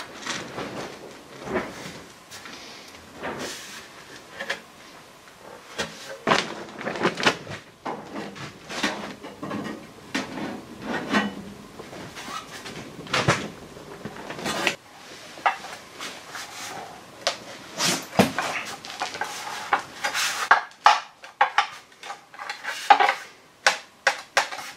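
Sheet-steel repair panel being bent in a bench vise and worked by hand: irregular metallic clanks, taps and rattles, coming more often near the end.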